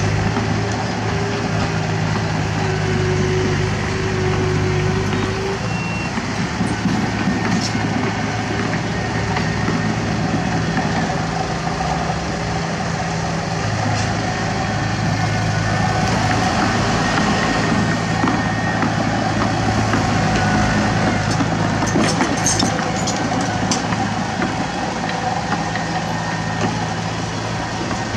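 Heavy diesel engines running steadily: a tipper dump truck's engine as it lowers its bed and pulls away, with a bulldozer's engine close by.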